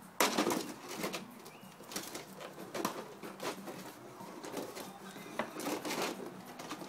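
Plastic container crinkling and scraping on concrete as two puppies grab and tug at it, in short noisy bursts, the loudest about a quarter second in.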